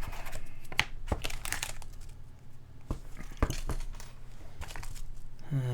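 Hands handling the parts and plastic packaging of a split mechanical keyboard kit: crinkling plastic and a scatter of small clicks and taps.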